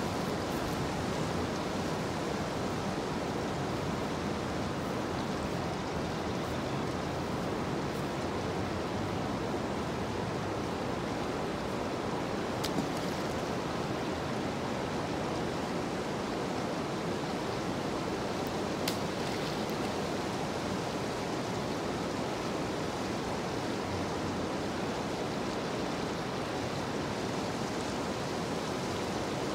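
A steady, even rushing noise with no pattern or pitch, broken twice near the middle by a faint short click.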